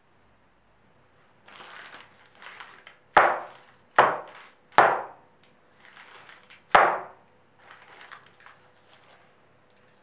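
A round metal cake pan of chocolate sponge batter knocked down on a wooden tabletop four times, sharp knocks that die away quickly, to drive out air bubbles. Softer rustling of the baking-paper lining and handling comes between the knocks.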